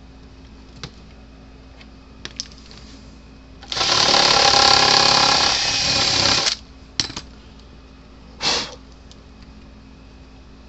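Power drill running a step bit to widen a hole: one run of about three seconds beginning about four seconds in, then a few clicks and a short half-second burst of the drill near the end.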